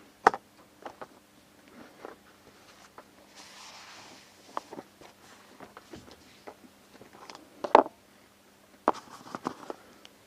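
Hands handling small plastic items: scattered light clicks and taps, a short hiss about three and a half seconds in, and a louder knock near eight seconds, followed by a quick run of taps.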